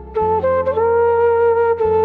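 Background music: a melody of long held notes that step up and down in pitch, over a sustained low bass.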